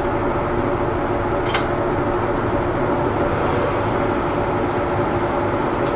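Cabin noise of a Kyoto City Bus under way: the engine and road noise run steadily with a constant hum, and a single sharp click sounds about a second and a half in.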